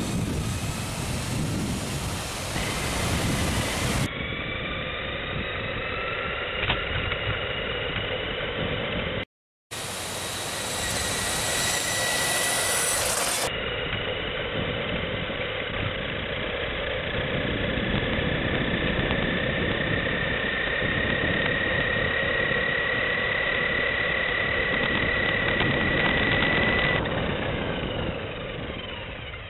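Small electric RC truck's motor and gears whining as it drives, the whine gliding up and down with speed, over a rough rumble of its tyres on asphalt. Much of it is heard close up from a camera mounted on the truck, with a short break about nine seconds in.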